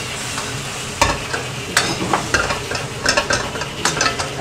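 Prawns frying in soy sauce in a wok, with a steady sizzle. A metal spatula repeatedly scrapes and knocks against the wok as they are stirred.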